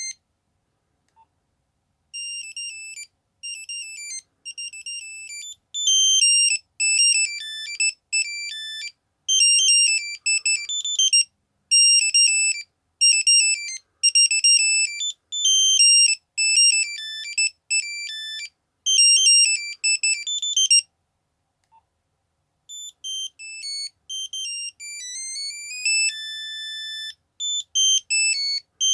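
Nokia 3210 monophonic ringtones: a melody of quick, high, beeping single notes starts about two seconds in and stops about three-quarters of the way through. After a short pause a second tune begins, with rising runs of notes and one held note.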